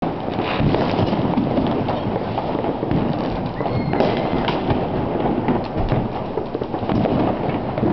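Many New Year's Eve fireworks going off at once: an unbroken rumble of distant bangs, with sharper cracks and pops scattered throughout.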